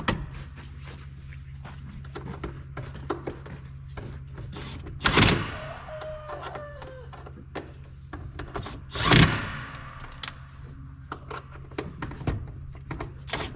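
Two heavy thuds about four seconds apart, among many light clicks and knocks, over a steady low hum; a short wavering squeak comes between the thuds.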